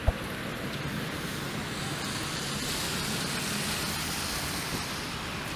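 Street traffic on a wet, slushy road: a steady hiss of tyres that swells as a car passes in the middle and then eases off, with a single sharp knock right at the start.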